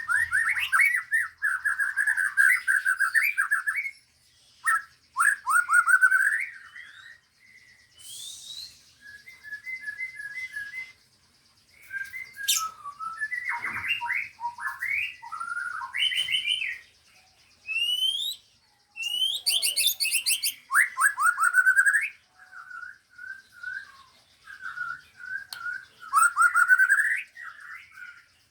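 Caged songbirds singing in bursts of varied phrases with short pauses between them: fast repeated notes and trills, high chattering notes, and a few quick rising whistles.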